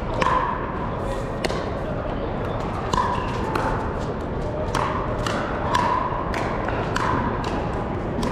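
Pickleball rally: paddles hitting a hard plastic pickleball back and forth, a sharp hit with a brief ring about once a second, over the steady din of a large hall with other courts and voices.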